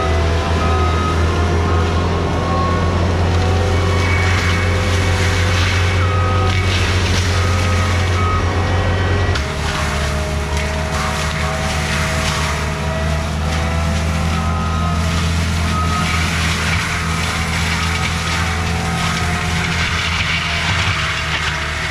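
Diesel engine of a skid steer working hard, with a backup alarm beeping in short runs. About nine seconds in, the engine note drops and the machine gets quieter.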